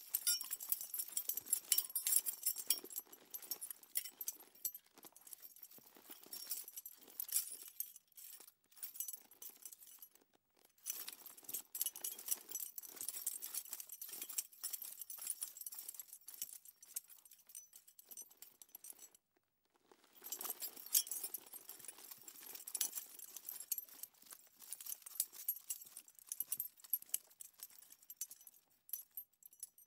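Horse bridles being moved, their metal bits, rings and buckles jingling and clinking in irregular runs, with a brief pause about two-thirds of the way through.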